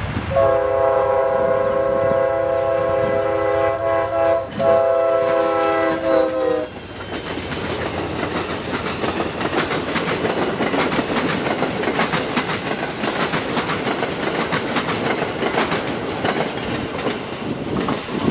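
Amtrak Silver Star passenger train at a grade crossing: the locomotive's multi-chime air horn sounds a loud chord, broken briefly once, for about the first six and a half seconds. It then stops and leaves the steady rushing and clattering of the passenger cars' wheels on the rails as the train passes.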